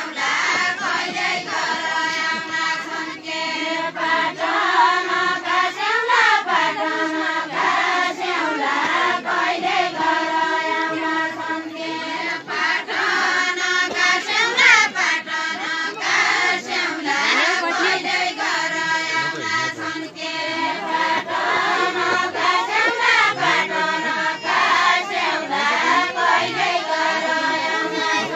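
A group of women singing a Nepali deuda folk song together, a chanted melody with no instruments, the same sung phrase coming round about every eight or nine seconds.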